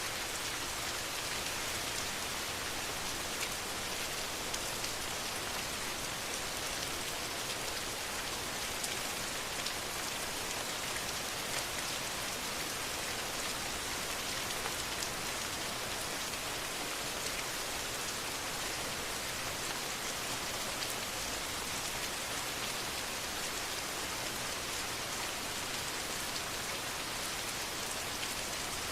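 Steady rain falling and pattering on a surface, an even hiss with scattered faint drop ticks and no change in strength.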